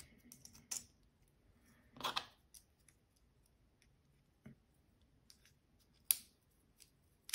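Carbon-fibre drone frame arms and plates handled and slotted together: a few scattered light clicks and brief scrapes of the parts, the sharpest click about six seconds in.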